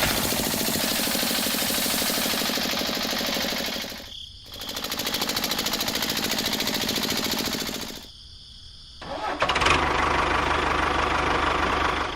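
A small motor running with a fast, even pulse. It drops out briefly twice and comes back with a rougher, deeper sound near the end.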